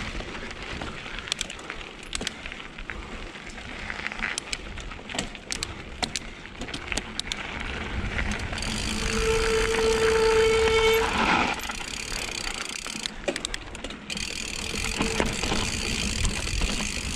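Mountain bike ridden slowly along a dirt trail: tyre noise on the dirt, with scattered clicks and rattles from the bike. A steady tone comes in near the middle and lasts about two seconds.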